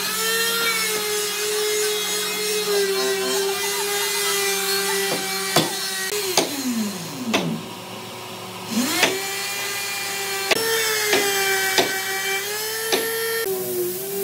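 Handheld electric power tool cutting wood, its motor whining at a steady pitch. About six seconds in it winds down and stops, then spins back up a second and a half later. Sharp knocks of wood are scattered throughout.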